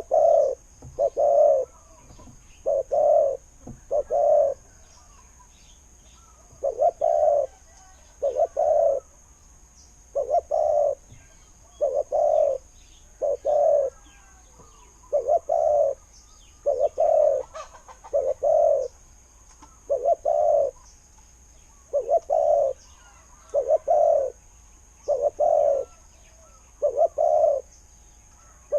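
Spotted dove calling: low cooing notes repeated over and over, in groups of two or three about every one and a half seconds, with short pauses between groups.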